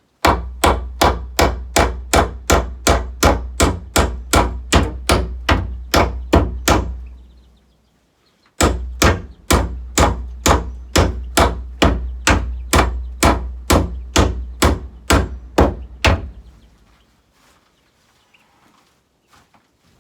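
Hammer striking wood in two long runs of steady blows, about three a second, with a brief pause near the middle; the blows stop about three-quarters of the way through.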